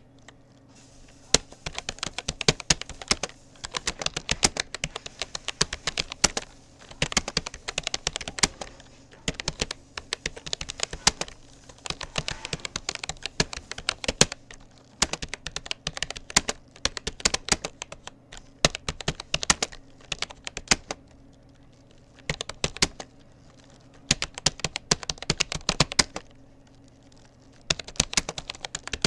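Typing on a Rapoo computer keyboard: quick runs of key clicks with short pauses between bursts, and now and then a louder keystroke. A faint steady hum lies underneath.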